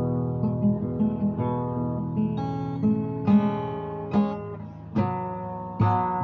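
Acoustic guitar strumming chords in an instrumental passage of a song, changing chord about five seconds in, with firmer strokes after that.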